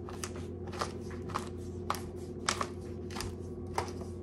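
Pepper grinder being twisted over raw chicken thighs, a short crunchy click with each turn, roughly one to two a second, over a steady low hum.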